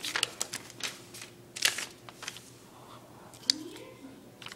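Sheets of notebook paper being handled and slid over a table by hand: a run of crisp rustles and scrapes, busiest in the first two seconds, and a single sharp click a little later.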